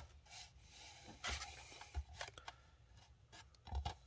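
A handful of short, faint rustles and light scrapes as sheets of sandpaper are picked up and handled on a cloth towel.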